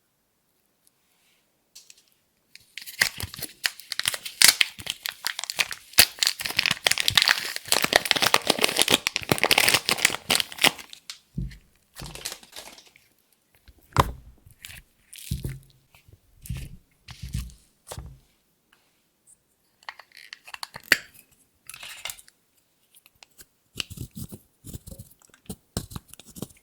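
Clear slime being squeezed and stretched by hand, with dense wet crackling and popping from about three seconds in. Around halfway it thins to scattered pops with a few soft thuds, and brief crackles return near the end.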